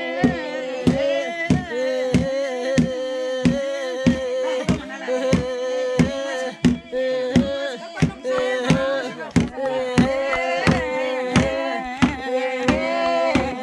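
Voices singing a chanted song, with a sharp beat about twice a second.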